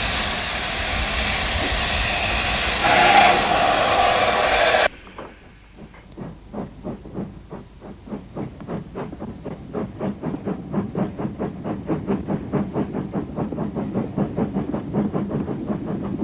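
Steam locomotive blowing off steam with a loud, steady hiss that swells briefly about three seconds in and cuts off abruptly about five seconds in. Then the locomotive's exhaust chuffs as it works along the line, about three beats a second, growing gradually louder.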